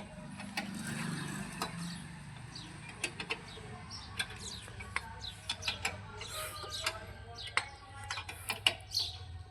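Scattered metallic clicks and knocks of hand tools and a car jack being worked during a tyre change, over a low steady hum.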